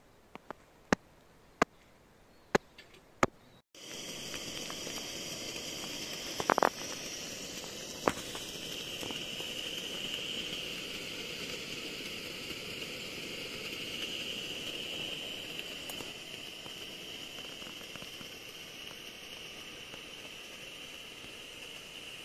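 Slow, single drops of water ticking at uneven intervals, then a steady high-pitched outdoor hiss with one louder knock and a click.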